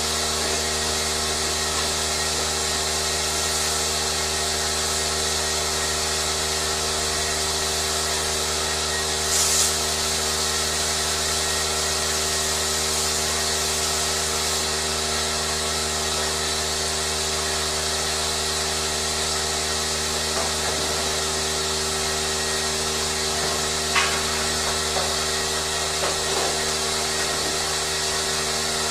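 Steady mechanical hum and hiss of running machinery at a constant level, made of many steady tones. A brief hissing burst comes about nine seconds in, and a sharp click about two-thirds of the way through.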